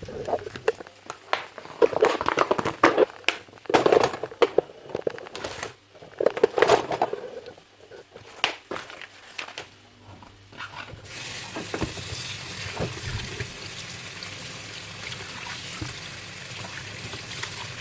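Irregular clattering and rustling of kitchen handling, then a kitchen tap turned on about eleven seconds in, water running steadily into the sink to rinse pork cutlets.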